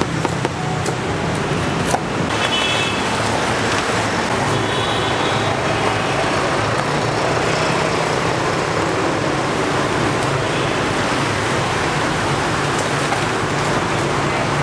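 Steady roadside traffic noise with a low hum, and a couple of sharp knocks in the first two seconds from a machete striking a green coconut.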